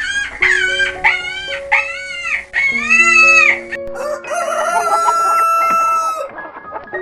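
Chickens calling over background music: a quick series of short, arching calls, then about four seconds in a rooster crowing, one long call of about two seconds.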